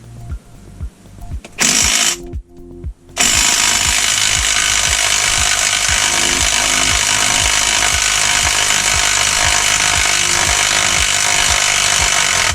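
Compressed-air shop tool hissing loudly and evenly: a short burst about a second and a half in, then a long continuous run from about three seconds in. Background music with a steady beat runs underneath.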